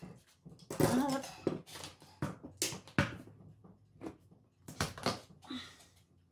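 Hands handling a mini camera's circuit board and round plastic housing: irregular rustling and scraping with a few sharp plastic clicks, the loudest about a second in and near three and five seconds.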